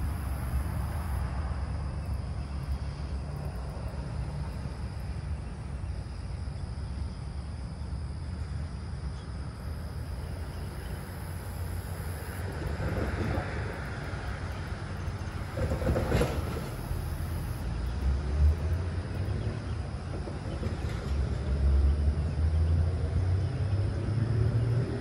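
Steady low outdoor rumble of vehicles on the nearby road, with a brief louder pass about sixteen seconds in and low swells growing stronger over the last few seconds.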